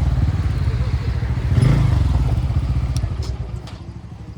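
Motorcycle engine idling, with a short blip of the throttle about a second and a half in, then dropping quieter toward the end.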